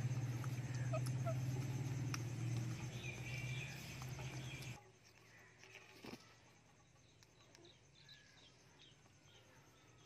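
Parrots chirping and calling in short notes over a steady low hum; about halfway through the hum drops out abruptly, leaving only faint high chirps and a single click.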